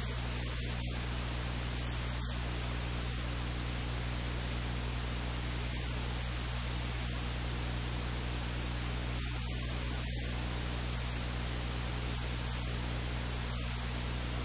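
Steady hiss of static with a low electrical hum underneath, unchanging throughout; no distinct handling or kitchen sounds stand out.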